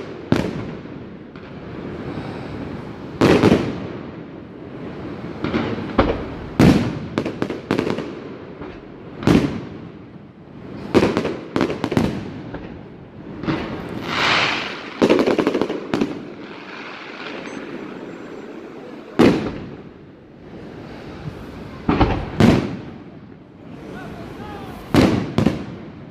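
Fireworks display: shells bursting in a string of sharp bangs every one to three seconds, some in quick pairs, each trailing off in an echo.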